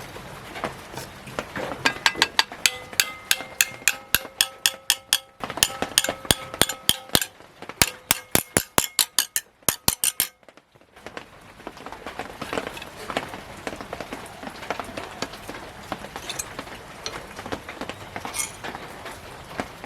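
A hammer striking a thin 1 mm iron plate in quick runs of about four blows a second, the plate ringing after each blow. About eleven seconds in the blows stop, and fainter, irregular clicks and taps follow.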